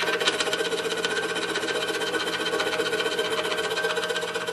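DeWalt scroll saw running, its blade stroking rapidly up and down as it cuts thin fretwork wood, a steady fast chatter.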